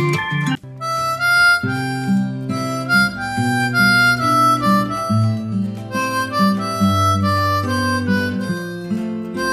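Background music: a harmonica melody over guitar and bass, starting just after a brief break about half a second in.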